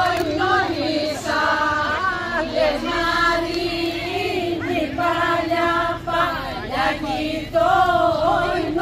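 A group of women singing a traditional Greek Easter dance song unaccompanied, with long held, wavering notes and short breaks between phrases. There is no hand clapping.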